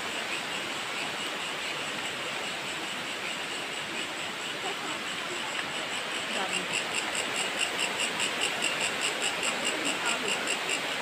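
A waterfall rushing steadily, an even hiss of falling water. From about six seconds in, an insect joins with a rapid pulsing call, several pulses a second.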